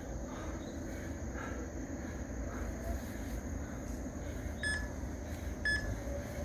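Electronic timer beeping three short times, a second apart, like a countdown to the end of an exercise interval, over a steady hum.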